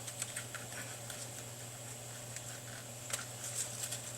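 Faint, scattered small clicks and rustles of hands working thin centring shims into the gap around a car speaker's voice coil, over a steady low hum.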